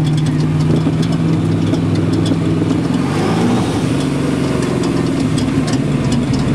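Twin-turbo LS V8 in a sand-rail dune buggy idling, its pitch wavering briefly about three seconds in.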